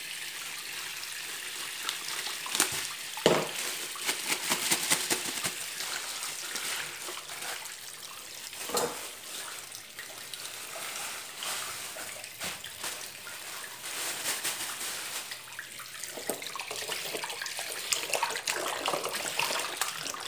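Water running and splashing in a stainless-steel kitchen sink as raw chicken pieces are washed by hand in a bowl of water, with the crinkle of plastic bags and short knocks of handling throughout.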